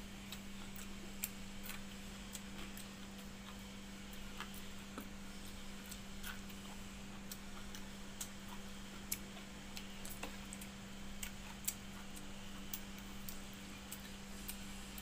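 A person eating rice by hand, with many small irregular clicks and smacks of chewing and handling food, a few of them louder. Underneath is a steady low hum.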